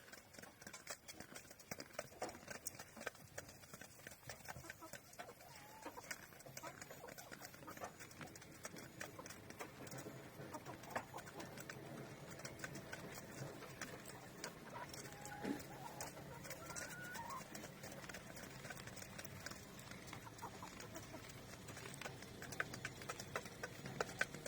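Chickens and a goat feeding on grain from a wooden basin: many light, irregular pecking taps, with a few short chirps from the chickens.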